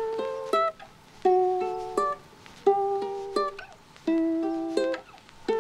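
Background music on a plucked string instrument: a short figure of plucked notes that repeats about every second and a half.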